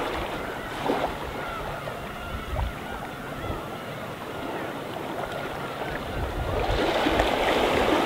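Gentle sea waves washing onto the shore, swelling louder near the end, under a steady chorus of many gulls calling.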